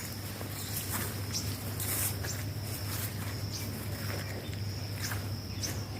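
Outdoor garden ambience: a steady high-pitched insect trill over a low steady hum, with scattered light clicks and rustles.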